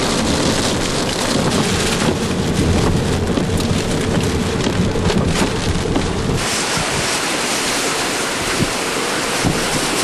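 Hurricane wind and rain: a heavy, rumbling wind buffets the microphone over a steady rain hiss. About six seconds in, the sound changes abruptly to a thinner, hissier rush of rain and wind.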